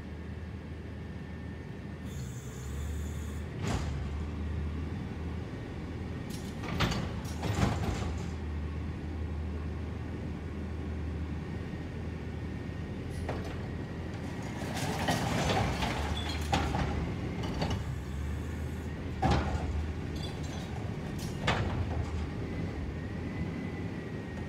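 Front-load garbage truck engine running steadily while its hydraulic forks lift a yellow Curotto-Can cart container up over the cab, with several metal clanks and a louder rattling stretch in the middle.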